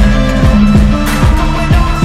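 Background music with a steady beat: a kick drum about twice a second under sustained pitched notes.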